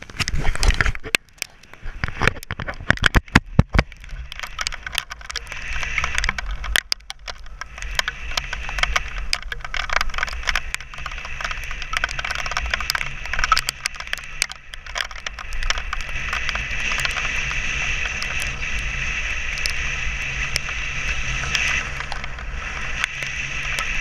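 Buckshot-sized hailstones striking hard surfaces: loud separate cracks for the first few seconds, then thickening into a dense, steady clatter of hits.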